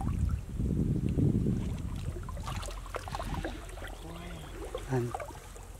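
Shallow pond water sloshing and splashing as a person moves through it by hand and foot, with a low rumble that is strongest in the first two seconds and then a few small splashes and clicks.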